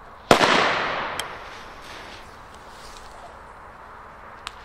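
A Funke Honey Badger Böller firecracker going off with a single sharp, loud bang about a third of a second in, its echo trailing away over a second or so. A small sharp crack follows near the end.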